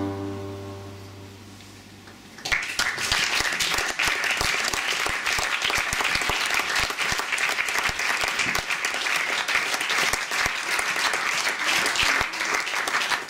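A final accordion chord fades away, then about two and a half seconds in the audience bursts into applause and keeps clapping.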